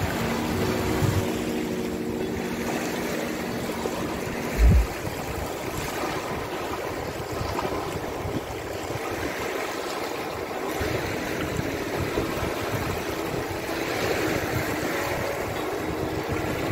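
Sea surf washing onto the beach, with wind buffeting the microphone in low, irregular gusts and one brief thump a little under five seconds in.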